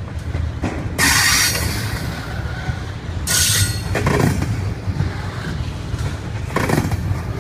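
Double-stack container train's well cars rolling past close by: a steady low rumble of wheels on rail, broken by three short bursts of high-pitched wheel squeal, about a second in, past three seconds, and near the end.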